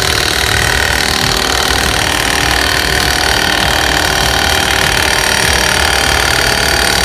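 Milwaukee M18 2767 cordless impact wrench hammering continuously under load as it drives the screw of an exhaust pipe stretcher, expanding the end of a 16-gauge stainless exhaust pipe.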